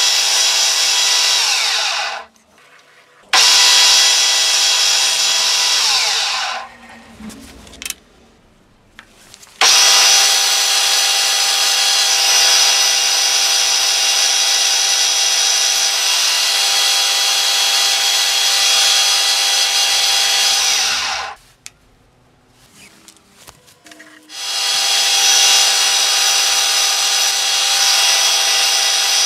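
Milling-machine spindle driving a drill bit through hardwood handle blocks, including ebony: a steady motor whine with the hiss of the bit cutting wood. The cutting stops briefly about 2 s in, about 7 s in and about 21 s in, then resumes.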